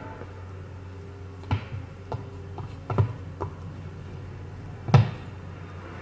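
Leather wallet phone cases being handled, giving several sharp taps and clicks, the loudest about five seconds in, over a steady low hum.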